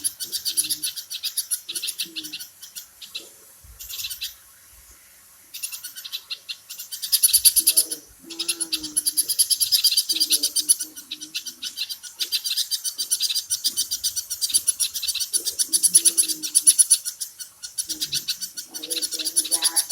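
Many small birds chirping rapidly and continuously in a dense chorus of high, quick notes, with a brief lull about four seconds in.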